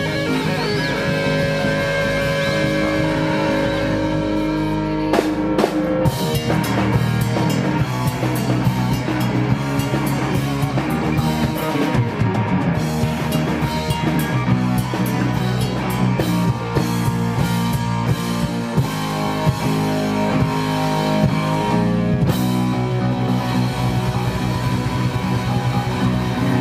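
Live rock band playing: electric guitars over a drum kit, loud and steady.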